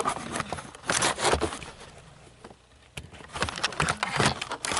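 Rasping, scraping handling noises in short bursts, with a lull in the middle and a sharp click about three seconds in.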